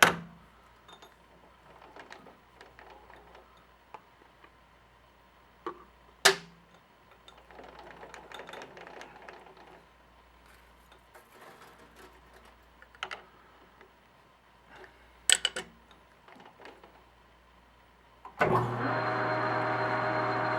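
Occasional clicks and metal knocks as a metal lathe's tool post is swung to about 45 degrees for a chamfer cut, then near the end the lathe starts up suddenly and runs with a steady hum.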